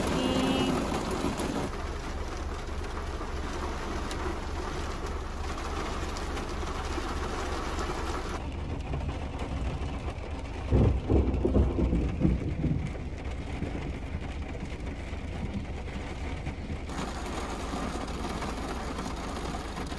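Heavy rain drumming steadily on a car's roof and windows, heard from inside the car. About halfway through there is a brief burst of louder low sounds.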